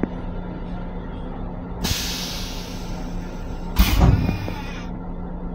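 Steady hum and rumble of an M7 electric railcar, heard from inside its restroom. About two seconds in a hiss of air starts and runs for about three seconds, with a sharp thump about four seconds in.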